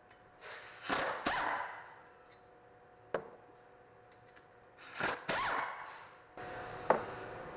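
Hand tools at work on a brake caliper's slide bolts with a 19 mm socket: a few sharp metal clinks and short scraping swishes, spaced a couple of seconds apart.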